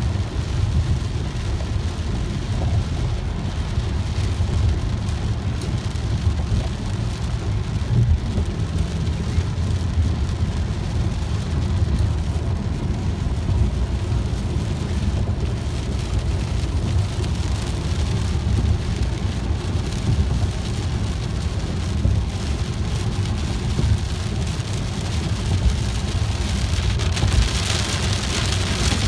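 Heavy rain pelting a moving car's windshield and roof, heard from inside the cabin over a steady low road rumble. The hiss of the rain grows louder near the end.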